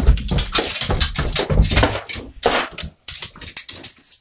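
Close rustling, scraping and bumping of a handheld phone being jostled against fabric and fur, with heavy thumps in the first two seconds and a pet dog making small sounds close by.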